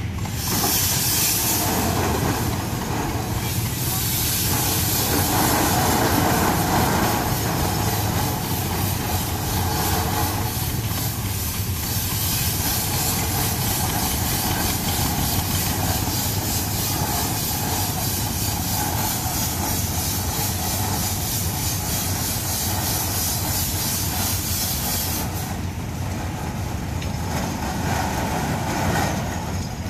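1913 Aultman Taylor steam traction engine running and moving off, steam hissing loudly and steadily. Near the end the high hiss drops away, leaving the lower running sound.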